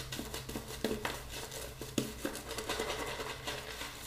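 Shaving brush working soap lather on a face: soft, irregular small clicks and crackles of bristles and lather, the lather still on the dry side and needing more water.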